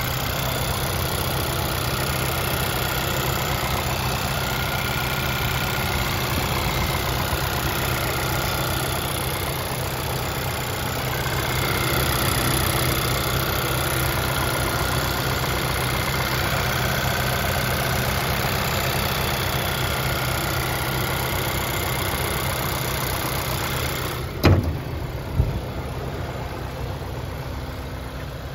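2010 VW GTI Mk6's 2.0-litre turbocharged four-cylinder (CCTA) engine idling steadily. Near the end there are two sharp knocks about a second apart, after which the engine sounds a little fainter.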